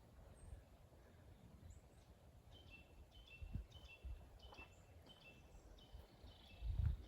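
A bird calling in a repeated series of short, high notes, about two a second, over a faint low rumble of wind on the microphone. A low thump comes near the end.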